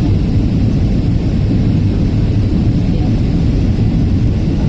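Steady low rumble inside an airliner's passenger cabin: jet engines and airflow heard through the fuselage, even in level throughout.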